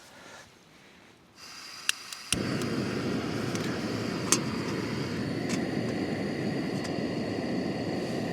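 Gas hissing from a remote-canister camping stove, two clicks of its piezo igniter, then the burner lighting with a sudden loud burn that keeps going with a few sharp crackles. This is a flare-up, which the owner puts down to an overfilled, refilled isobutane canister.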